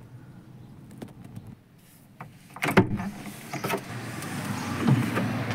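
A vehicle door opening: a sharp latch click a little under three seconds in, followed by knocks and rustling as someone gets in at the door.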